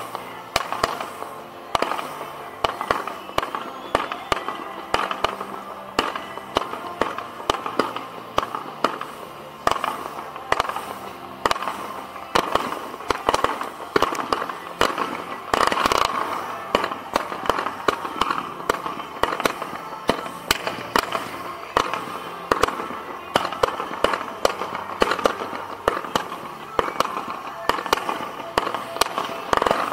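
Professional display fireworks firing at close range from the launch site: a continuous barrage of sharp launch thumps and bangs, several a second, with a heavier volley about halfway through.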